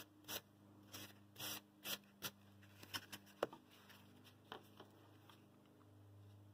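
Hands rubbing and pressing burlap ribbon onto a glued foam block and sliding the block across paper: a run of short, faint scrapes and rustles over the first three and a half seconds, then a few light taps.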